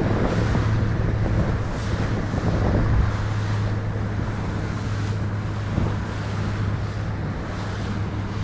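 An engine running steadily with a constant low hum, mixed with wind buffeting the microphone.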